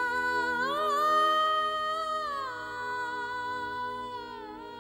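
Slow background music of held, sustained chords. A melody line rises about a second in, holds, then slides back down near the middle.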